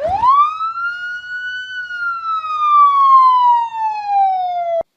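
A dachshund howling: one long howl that rises quickly and then slowly falls in pitch, ending abruptly.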